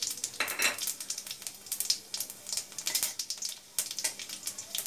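Panch phoron seeds and dried red chillies sizzling in hot mustard oil in a steel wok, with a dense run of irregular small crackles and pops.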